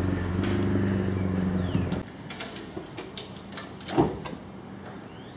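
Forklift running with a steady hum that cuts off suddenly about two seconds in. After that come scattered clicks and knocks, with one sharp knock about four seconds in.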